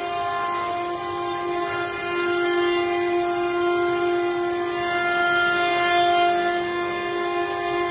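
Six-spindle 4-axis CNC carving machine running, its router spindles giving a steady high-pitched whine while the cutters carve wooden statues, with a hiss of cutting that swells at times.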